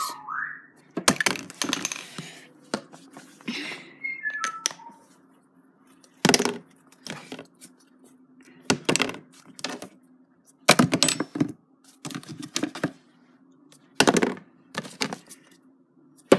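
A plastic bottle being flipped and landing on a hard surface again and again: a string of short thunks and clatters a second or two apart, some in quick clusters as it lands and tips over.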